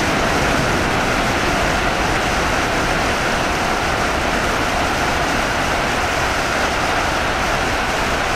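Freight train passing through at speed: a steady, loud noise of wagons rolling by, holding the same level throughout.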